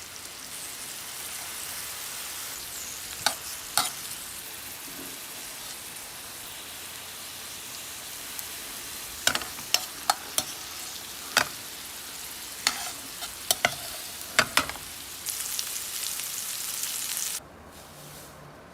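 Food sizzling in a frying pan, with a cooking utensil clicking and knocking against the pan every so often. The sizzle gets louder about fifteen seconds in, then cuts off sharply near the end.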